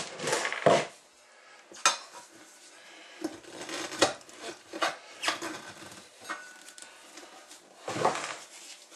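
Metal tire levers clinking and scraping against a garden tractor's wheel rim as a tire is pried off over the rim's edge. Sharp clanks come in the first second and again about eight seconds in, with scattered knocks and rubbing between.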